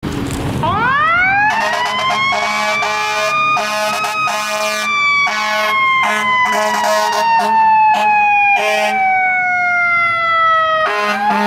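Fire engine's mechanical siren winding up fast about half a second in, then slowly winding down over about ten seconds and winding up again near the end. Many short blasts of the air horns come through most of it.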